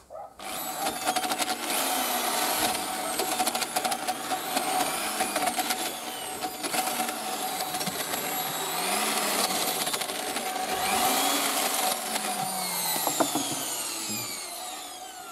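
Small electric power tool running, its motor whine steady at first, then rising and falling in pitch, with scattered rattles and clicks.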